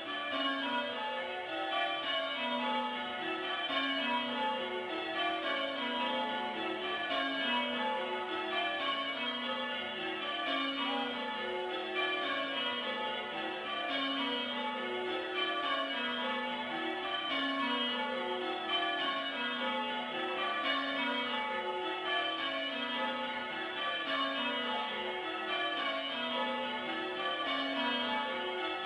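Church tower bells rung full-circle in English change ringing, heard from inside the tower below the bells: a steady, unbroken stream of strikes falling in repeated rows that step down the scale.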